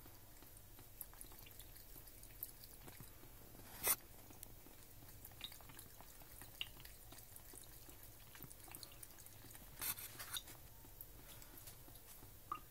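Bengal cat lapping water from a trickling kitchen tap: faint scattered licks and drips, with a sharper click about four seconds in and a short run of clicks near ten seconds.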